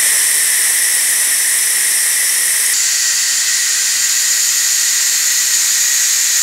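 Steam venting through the Ninja Foodi Pro's pressure-release valve, a loud, steady hiss: a quick manual release of the pressure after cooking. Its tone shifts slightly a little under three seconds in.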